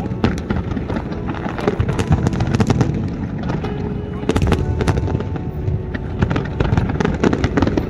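Fireworks going off in a rapid, irregular run of bangs and crackles, with crowd voices underneath.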